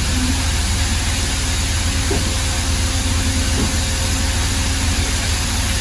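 Pedrazzoli Bend Master 75 CNC tube bender running idle: a steady, loud machine hum with a low drone and a faint steady tone.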